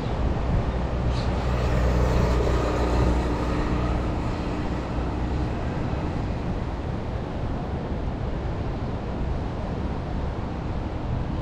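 A motor vehicle's engine passing close by, loudest about two to four seconds in and fading away after about five seconds, over a steady background of outdoor noise.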